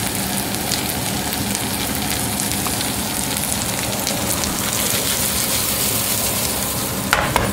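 Soy meat chunks frying in oil and sauce in a pan, a steady sizzle full of fine crackles, with a brief knock near the end.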